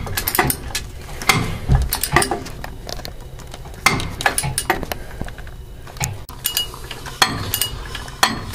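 Ratchet and socket being worked on a fire pump's anode to loosen it: clusters of ratchet clicks and metal-on-metal clinks, with short pauses between strokes.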